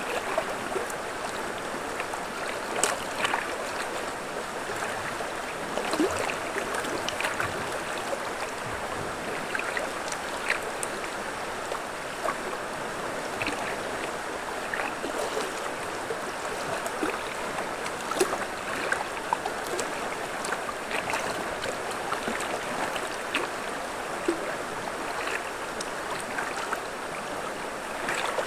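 River water running steadily over stones, with scattered small splashes and clicks.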